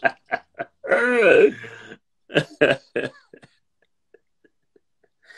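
Men laughing hard: short bursts of laughter, then a long high-pitched laugh that rises and falls about a second in, a few more bursts, and it trails off.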